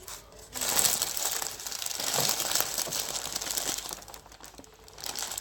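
McDonald's paper burger wrapper crinkling and rustling as it is unwrapped from a McChicken sandwich: loud, for about three seconds from just under a second in, with a short crinkle again near the end.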